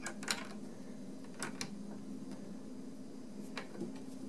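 A few light, sharp metal clicks from a small gear puller being handled as it pulls a stuck cam off a Seeburg 100 jukebox mechanism's camshaft, over a steady low hum.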